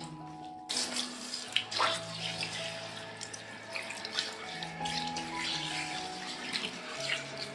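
Handheld shower spraying water over a cat's wet, shampooed coat to rinse it, switching on suddenly just under a second in, with splashing and dripping onto a tiled floor, over background music.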